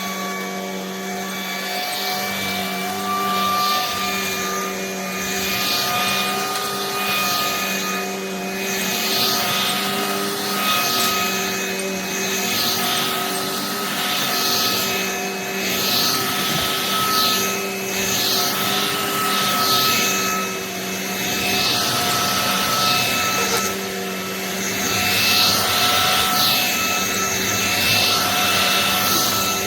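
Vacuum cleaner running with a steady motor whine, its hiss swelling and easing about every two seconds as it is pushed back and forth over the floor.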